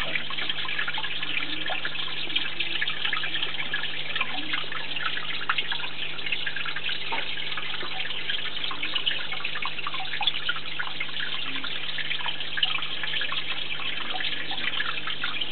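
Water from a vivarium waterfall trickling and splashing steadily, over a low steady hum.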